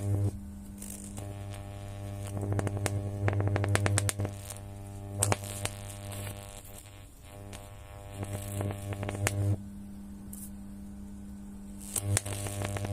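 Microwave oven running with a loud electrical hum, and irregular crackling clicks and snaps from the Snickers bar heating inside. The hum cuts out twice, briefly just after the start and for about two seconds from about three-quarters of the way through, then starts again near the end.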